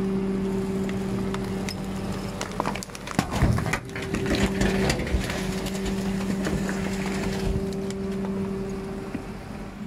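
Rear-loader garbage truck's hydraulic compactor working: a steady machine hum from the engine and hydraulics, broken about three seconds in by clanks, knocks and crunching as the packer blade comes down into the hopper and crushes the bagged rubbish.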